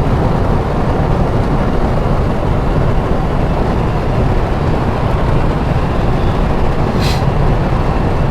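Steady road and engine noise heard inside a moving vehicle's cabin, with a brief hiss about seven seconds in.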